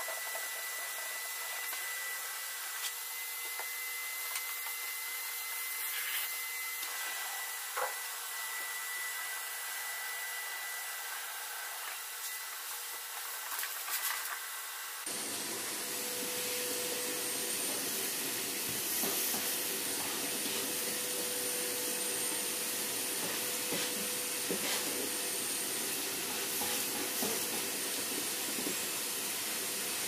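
Shop vac running steadily with a thin, high motor whine as it vacuums the floor of a car, with a few light knocks. About halfway through the sound changes abruptly to a fuller, lower rush with a different whine.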